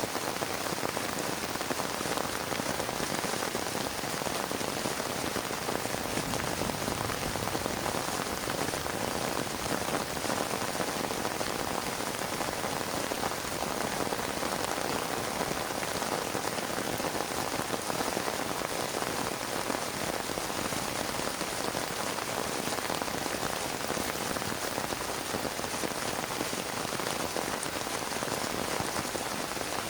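Heavy rain falling steadily on a plastic tarp: a dense, even hiss of drops with no break and no thunder.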